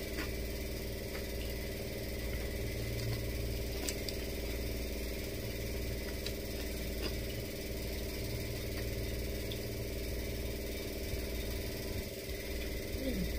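Steady low hum of a running electric motor, with a few faint taps now and then.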